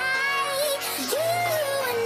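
Background pop music: a melodic line with a held, gliding note over a steady accompaniment, between sung lines.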